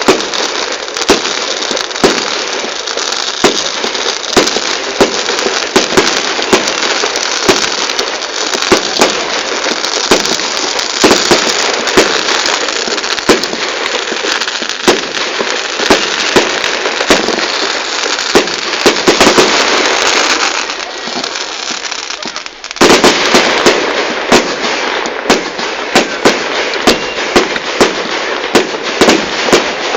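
A fireworks display: a dense run of sharp bangs, about one or two a second, over continuous crackling, with a short lull about two-thirds of the way through before the barrage starts again.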